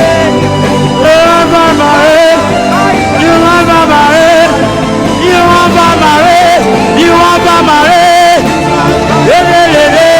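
Live gospel worship music from a band, with a lead melody of gliding, wavering pitched lines that sound like wordless singing over steady accompaniment.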